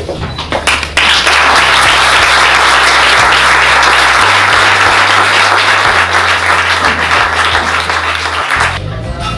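Audience applauding, breaking into full applause about a second in and dying down near the end.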